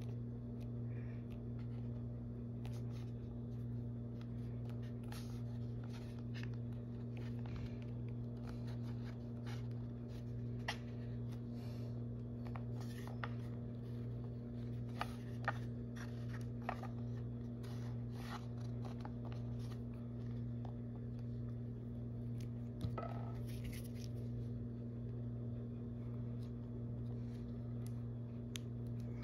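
Sculpting tools working polymer clay (Sculpey): scattered small clicks, taps and scrapes, over a steady low hum.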